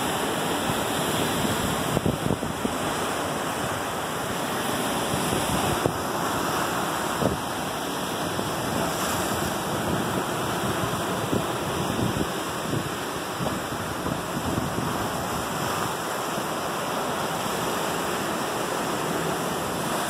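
Lake Superior waves breaking on a rocky shore: a steady rush of surf with a louder crash now and then as a wave hits the rocks.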